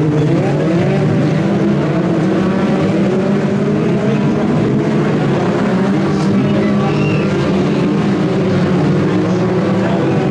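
A pack of BriSCA F2 stock cars racing: several engines run together in a loud, steady drone, their revs rising and falling as they lap.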